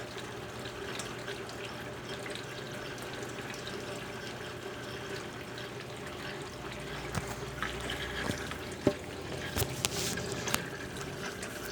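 Brastemp Ative BWG11 top-loading washing machine filling its drum with water: a steady rush of running water. A few short knocks and clicks come in the second half.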